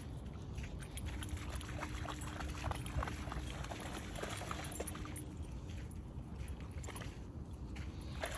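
A dog wading into shallow sea water, its legs splashing in a run of quick small splashes that die away as it comes to a stop, over a low rumble of wind on the microphone.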